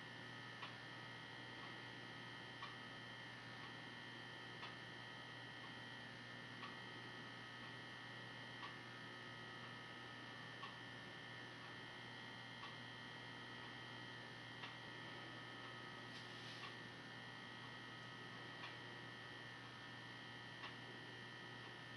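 Faint room tone: a steady electrical hum with a soft tick about every two seconds.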